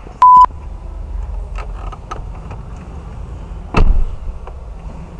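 A short, very loud electronic beep at one steady pitch just after the start, then a single heavy thud nearly four seconds in, with a few faint clicks between.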